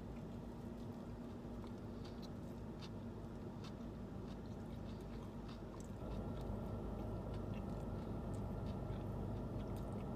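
Close-miked chewing of a bite of turkey sub sandwich, with small wet mouth clicks, over a steady low hum that gets a little louder about six seconds in.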